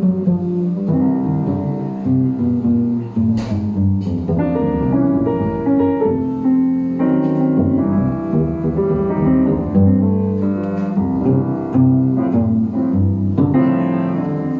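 Live jazz trio of double bass, piano and trombone playing a slow waltz, the double bass prominent under sustained melody notes.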